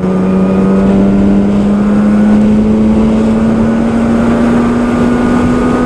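Yamaha RD250LC's two-stroke parallel-twin engine running on the road, a steady engine note that climbs slowly in pitch as the bike pulls along.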